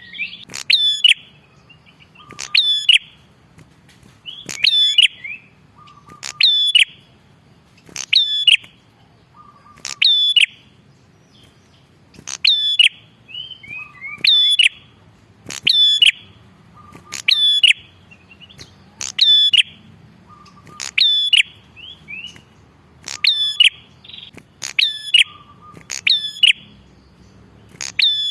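Prenjak kepala merah singing non-stop (gacor): a loud, sharp call repeated about every one and a half to two seconds, with softer quick twittering notes between the calls.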